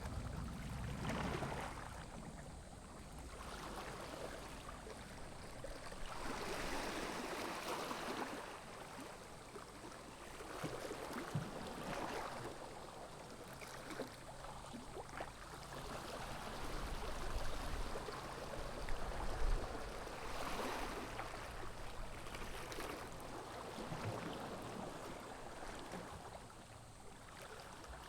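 Small sea waves lapping and washing, swelling and fading every few seconds.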